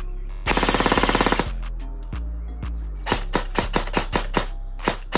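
Airsoft electric gun (AEG) firing a rapid full-auto burst of about a second, its gearbox cycling fast. Then, about three seconds in, a quick string of about nine single semi-auto shots.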